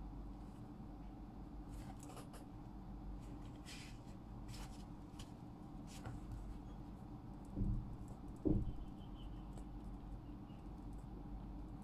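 Pen scratching on paper in short strokes, with two low thumps about a second apart, about two-thirds of the way through, over a steady low hum.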